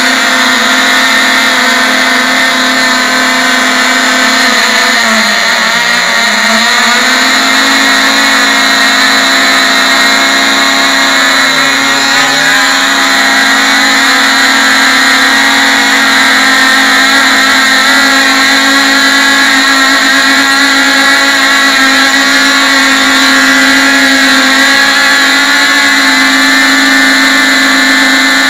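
Three small Cox RR-1 model glow engines running together at high speed with a loud, steady, high-pitched buzz, their pitch dipping briefly a few times. The engines are set to run fairly rich.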